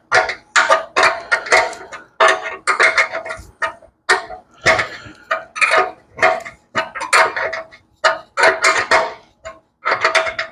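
Background music: a plucked string instrument playing short, quick notes in a steady rhythm, stopping suddenly near the end.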